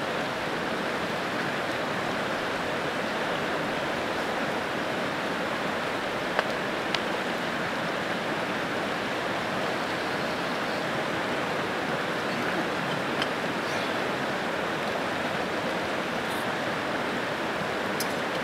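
Steady rushing of a nearby creek, with a couple of light utensil clicks from cooking at the camp stove.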